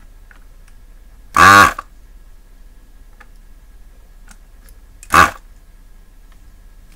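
Vacuum desoldering gun's pump firing twice, sucking molten solder from switch pins on a circuit board: a loud buzzing suck of under half a second about a second and a half in, and a shorter one a little after five seconds. Faint light ticks in between.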